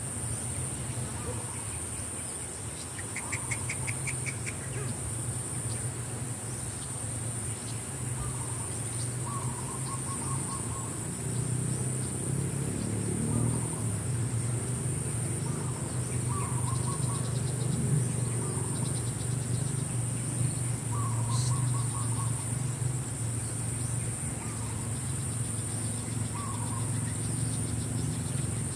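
Steady high-pitched insect drone, with short bird calls repeating every few seconds and a brief rapid trill a few seconds in. Over a low steady rumble that grows louder toward the middle.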